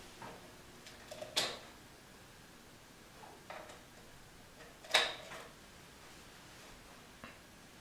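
A few faint clicks and knocks from handling the streaming media player's power cable as it is pulled out to force-close Kodi, with two sharper clicks about a second and a half in and at about five seconds.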